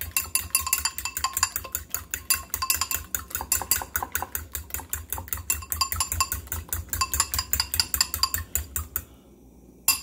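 Eggs being beaten with a metal utensil in a ceramic bowl: a fast, even clinking of metal against the bowl, about seven strokes a second, which stops about nine seconds in.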